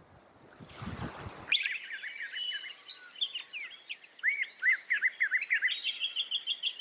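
Several small birds chirping and twittering in a busy, overlapping chorus of short up-and-down notes. It starts abruptly about a second and a half in, after a faint noisy stretch.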